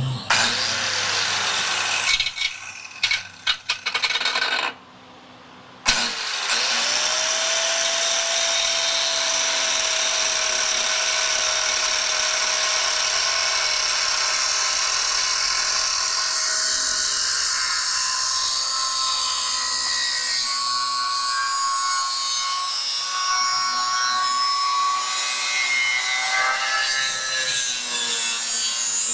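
A power tool cutting and grinding down cast refractory cement edges. It runs in short stop-start bursts for the first few seconds, then starts up again about six seconds in and runs steadily, with a whine whose pitch shifts as it bites.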